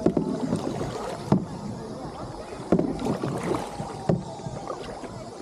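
Kayak paddle strokes in water: a splash about every second and a half, with small knocks and drips between.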